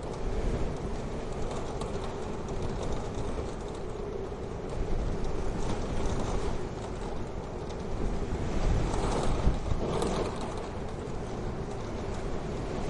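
Wood fire burning in a wood-burning stove: a steady low rushing noise of the flames with a few faint crackles, and one sharper pop about ten seconds in.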